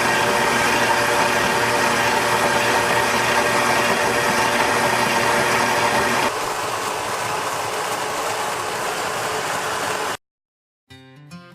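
Mockmill electric stone grain mill running steadily, a dense motor-and-grinding hum. About six seconds in it drops a little quieter and thinner, then cuts off abruptly near the end, and acoustic guitar music starts.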